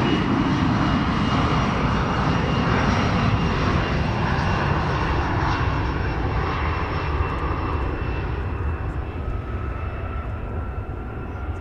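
Boeing 787-9 airliner's Rolls-Royce Trent 1000 jet engines at climb power just after takeoff: a broad jet rumble with a few steady whining tones, slowly fading as the plane climbs away.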